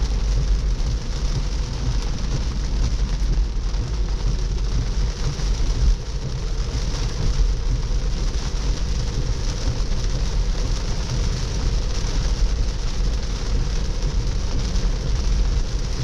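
A Tesla electric car driving in moderate rain: a steady low rumble of tyres on the wet road with an even hiss of rain and spray.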